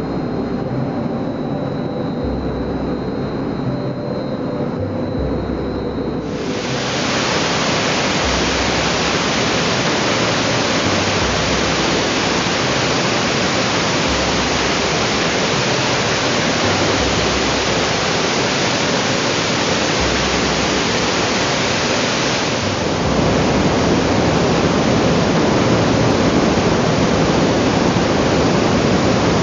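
A vibrating coal and sand screening machine running: at first a steady mechanical hum with a few constant tones. About six seconds in, a loud, even rushing noise comes in suddenly, and it grows louder again about 23 seconds in.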